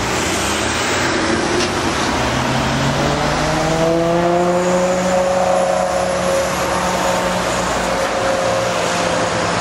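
Ferrari 599 GTO's straight-piped V12 under way. The engine note rises about three seconds in as the car accelerates, then holds steady as it pulls away.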